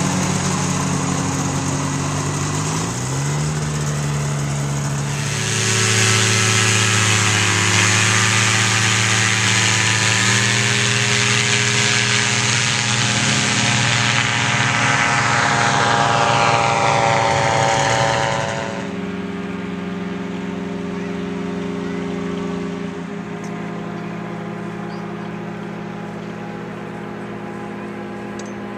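Powered parachute engine and propeller running as the craft flies past. About five seconds in it becomes louder with its pitch wavering, then falls away sharply at about nineteen seconds, leaving a steadier, quieter engine hum.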